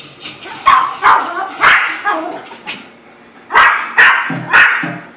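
Yorkshire terrier barking: sharp barks in two quick runs of three, a couple of seconds apart.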